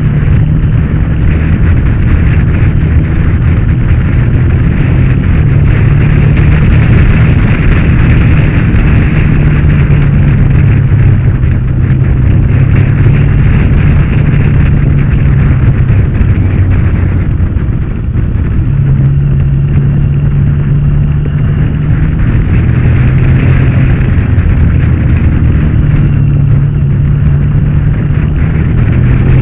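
Motorcycle engine running under way, with heavy wind buffeting on the microphone; the engine note shifts in pitch several times and dips briefly about 18 seconds in.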